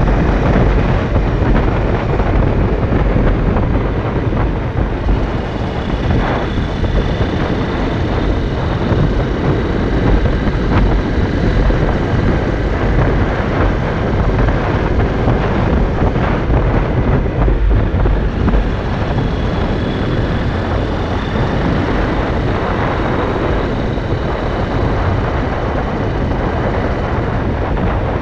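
Honda CRF250L's single-cylinder four-stroke engine running at road speed under steady wind rush on the microphone, the bike slowing gradually.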